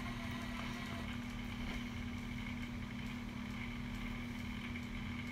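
Engine running steadily at idle, an even low hum that does not change.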